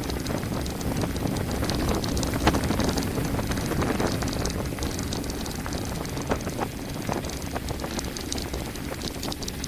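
Mountain bike descending a rough track at speed: a steady rumble of tyres and wind on the microphone, with scattered clicks and rattles from the bike over bumps.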